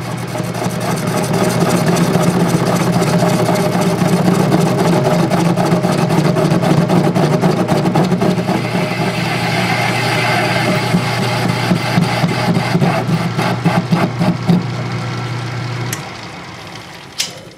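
Metal lathe running under a light facing cut on a cast-iron casting: a steady motor hum with the rougher sound of the tool cutting iron over it. About sixteen seconds in the lathe is switched off and the sound drops away as the spindle coasts down.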